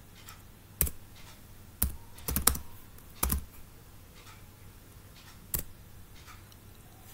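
Typing on a computer keyboard: about half a dozen separate keystrokes, uneven in spacing, coming roughly once a second at first, then a pause of a couple of seconds before a last keystroke later on.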